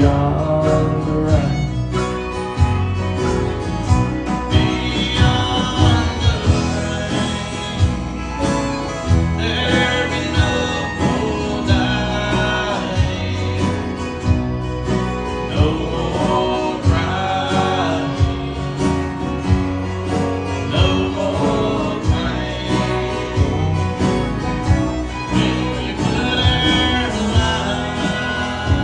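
Country-style song with guitar and a singing voice over a steady beat.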